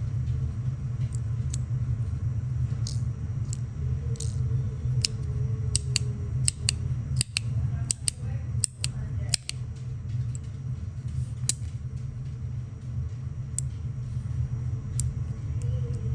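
Small magnetic metal balls clicking and snapping against a copper haptic coin fidget, in scattered sharp clicks, over a steady low hum.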